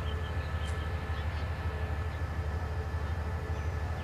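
Railway diesel engine idling steadily: a low, evenly pulsing rumble with a faint steady hum above it.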